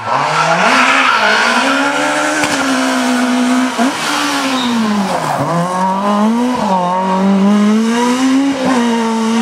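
Rally car engine at high revs, its pitch climbing and then dropping several times as the driver shifts up and lifts for corners. About five seconds in the pitch sweeps sharply down as the car goes past.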